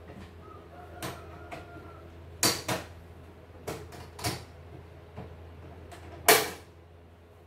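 Irregular clicks and knocks of a screwdriver and the plastic housing of a CNY E900 embroidery machine being handled and worked on, about seven in all, the loudest a sharp knock about six seconds in. A steady low hum runs underneath.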